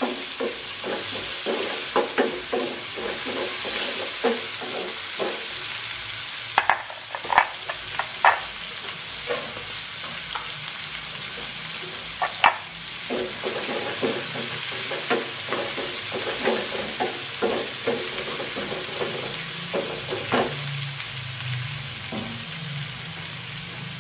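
Chopped onion, garlic and red chilli sizzling in melted margarine in a nonstick frying pan. A wooden spatula scrapes and knocks against the pan as the vegetables are stirred. The stirring thins out near the end, leaving mostly the sizzle.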